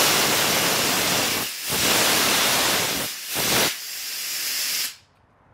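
CO2 cold gas thruster venting gas through its nozzle with a loud, steady hiss, throttled by its servo valve. The hiss dips briefly twice, settles to a lower level as the valve is throttled down, then cuts off about five seconds in.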